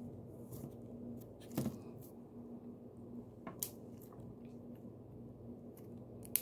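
Color-changing putty squeezed and kneaded between the fingers: soft, sticky squishing with scattered crackles and clicks, the sharpest about a second and a half in and again past three seconds. A faint steady hum sits underneath.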